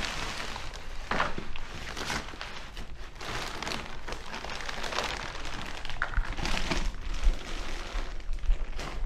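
Plastic wrap and brown packing paper crinkling and rustling in irregular bursts as long metal parts are unwrapped by hand from their box.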